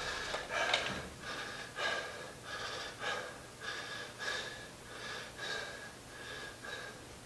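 A man breathing hard after an exercise set, in quick, even breaths about every half second that grow fainter.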